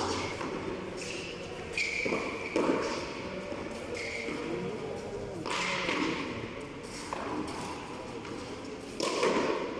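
Frontón rally with a soft tennis ball: the ball smacks against the wall and the players' hands several times at irregular intervals, each hit echoing in the high-walled court.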